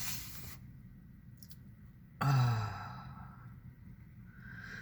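A woman breathes in, then lets out a sigh with a voiced tone that falls in pitch, about two seconds in.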